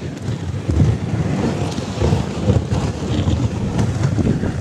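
Wind buffeting the microphone on a moving dog sled, an uneven low rumble.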